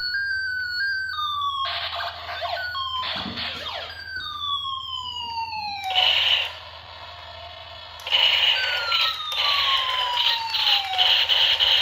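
Battery-powered toy gun's electronic sound effects: a run of laser-like tones, each sliding down in pitch, over about the first six seconds, then a noisy electronic buzz with one long falling tone near the end.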